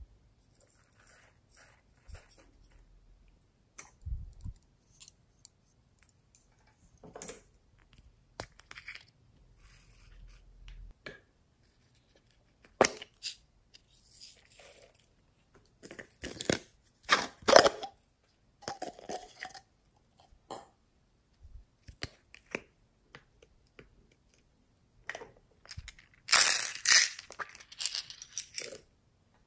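Hands handling small hard plastic toy cases of sprinkles and beads: scattered clicks, taps and rustling, with louder bursts of crinkly rattling in the middle and near the end.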